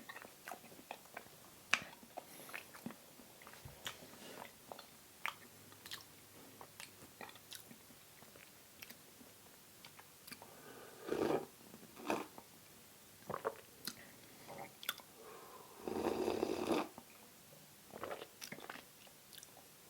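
Close-miked chewing and wet mouth sounds while eating a bite of vegan pumpkin spice cheesecake: a run of small sharp smacks and clicks, with louder stretches of chewing about eleven and sixteen seconds in.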